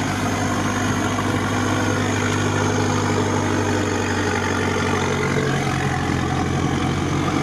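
UAZ off-roader's engine running steadily at low revs while the truck, stuck in swamp mud and unable to move on its own, is pulled out on a tow rope.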